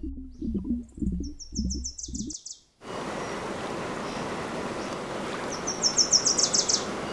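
A small songbird sings a short trill of quick high notes, twice. The first trill comes over low burbling sounds; after a sudden change about three seconds in, the second comes over the steady rush of running water.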